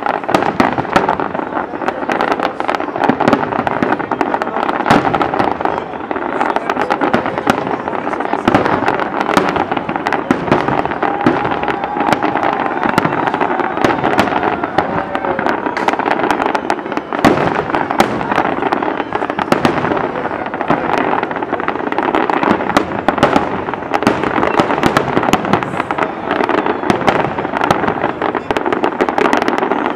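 Aerial fireworks display: a dense, unbroken barrage of shell bursts, sharp bangs and crackling, several reports every second.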